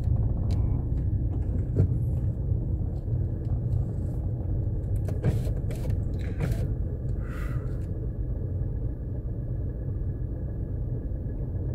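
Low, steady rumble of a car driving slowly, heard from inside the cabin, with a few faint clicks about two seconds in and again around the middle.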